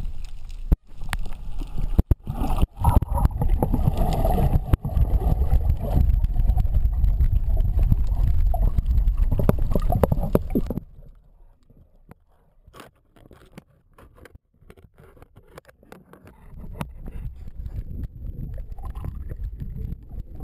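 Water rushing and sloshing as heard by an underwater camera. It is loud and muffled for about the first half, then drops away to a quieter wash with scattered sharp clicks, and builds again near the end.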